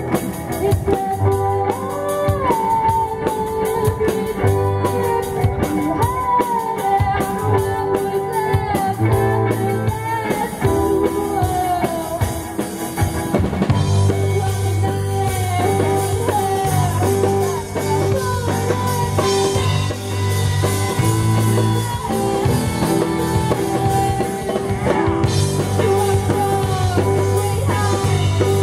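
Live rock band playing: an electric guitar and a drum kit under a woman singing into a microphone. The low end grows heavier and steadier about halfway through.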